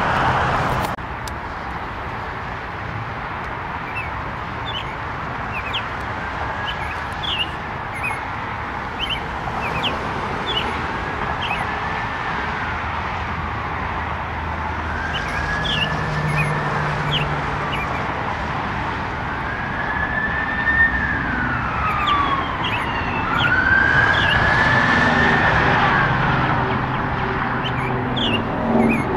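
A siren wailing in a slow rise and fall, repeating every few seconds and growing louder about twenty seconds in, over a steady background rush, with short high chirps scattered through it.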